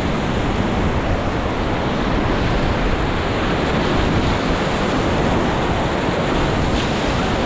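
Whitewater of a river rapid rushing steadily and loudly around a raft, with wind on the microphone.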